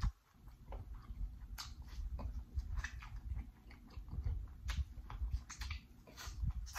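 Close-miked eating sounds: biting into a sauce-coated corn on the cob, chewing and lip smacking, heard as a string of irregular crisp clicks and crackles.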